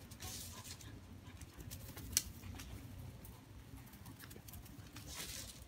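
A ferret and a dog scampering over dry grass: faint rustling and patter of paws and bodies, with short rustling bursts near the start and about five seconds in, and one sharp tap about two seconds in.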